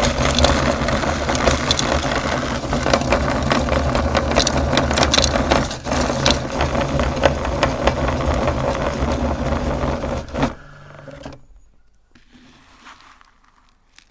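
Electric meat grinder running with a steady motor hum and dense crackling crunches as hard pieces go through it, then switching off about ten and a half seconds in, leaving only faint rustling.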